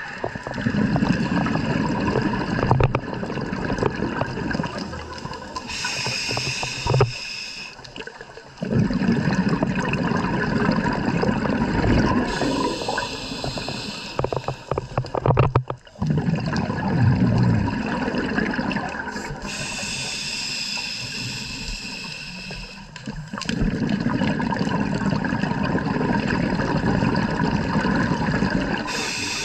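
Scuba diver breathing through a regulator underwater: long, low bubbling exhales alternate with shorter hissing inhales, about four breaths, one every seven seconds or so.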